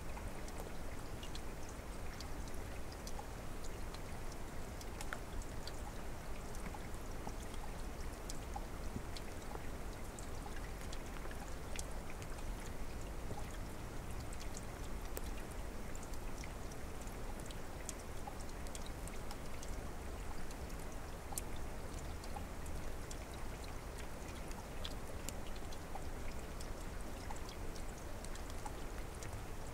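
A mountain stream flowing: a steady rush of water, with many small splashes and drips ticking over it.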